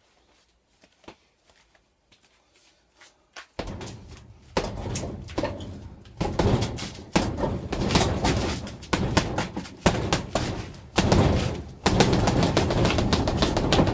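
Boxing gloves punching a heavy bag hung on chains, in fast flurries of blows. It is quiet for about the first three and a half seconds, then the punches come thick and loud for the rest.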